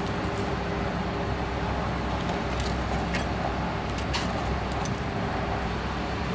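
Steady kitchen noise with a low hum, with a few light clicks and crackles as pieces of crisp tempura are handled and set down on a paper-lined plate.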